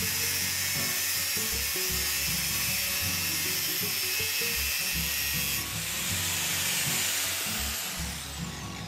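Angle grinder's abrasive disc grinding a thick 4130 steel yoke plate: a steady, harsh grinding noise that eases off near the end.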